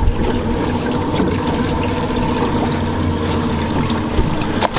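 Water trickling and splashing over a steady mechanical hum, with one sharp click near the end.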